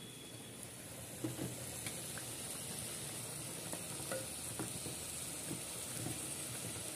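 Bottle gourd pieces simmering in a clay pot with a steady hiss, stirred with a wooden spatula that knocks lightly against the pot now and then.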